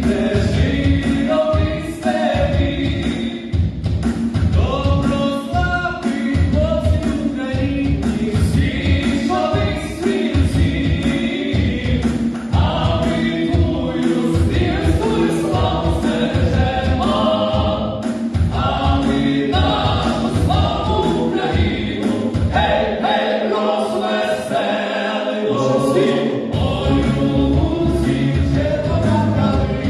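Music: a song sung by a choir of voices over an instrumental backing with a steady beat.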